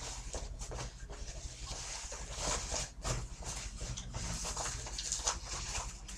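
Faint rustling and light clicks of packaging and sharpener parts being handled, irregular and soft throughout.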